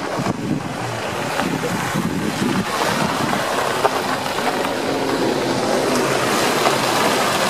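Ferrari V12 engine running at low revs as the car drives slowly past, with a second car's engine following close behind.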